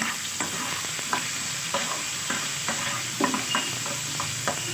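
Potato wedges sizzling in hot mustard oil in a frying pan, a steady hiss, while a spatula stirs and turns them with repeated short scrapes against the pan.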